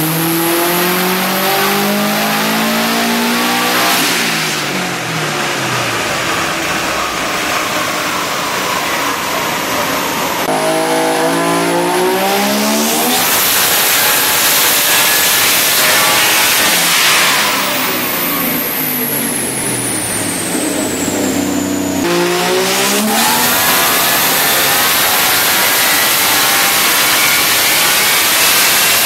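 Car engines run at full throttle on a chassis dynamometer, starting with a Subaru Impreza WRX STI's turbocharged flat-four, then a 1970s Mazda sedan. The pitch climbs in long sweeps and then drops off, several times over, with abrupt jumps from one run to the next.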